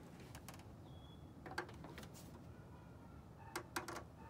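A few faint metallic clicks from two combination wrenches levered on the serpentine belt auto-tensioner's 17 mm bolt to release belt tension: one about a second and a half in, then two close together near the end.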